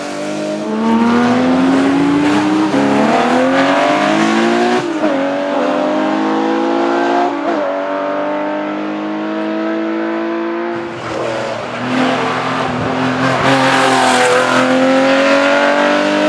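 Porsche 911 Carrera RSR's flat-six racing engine accelerating hard through the gears: its pitch climbs steadily and falls sharply at each upshift, several times over.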